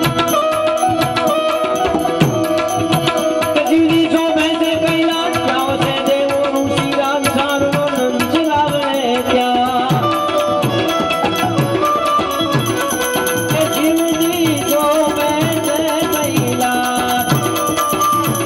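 Harmonium and tabla playing a Gujarati devotional bhajan: the harmonium holds a steady melody while the tabla keeps a running rhythm, its bass drum strokes sliding down in pitch.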